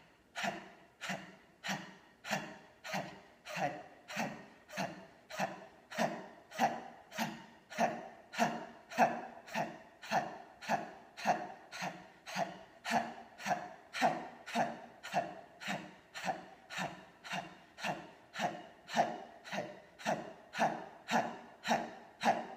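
A woman's rhythmic, forceful exhalations, each a short breathy 'har' or 'hud' pushed out by snapping the belly in, evenly paced at about two a second: the Har abdominal breathing exercise.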